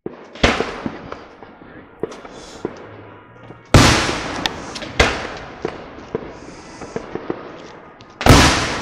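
Aerial fireworks shells bursting: four loud bangs, about half a second in, near four seconds, at five seconds and near the end, each dying away in a rolling echo, with smaller crackling pops in between.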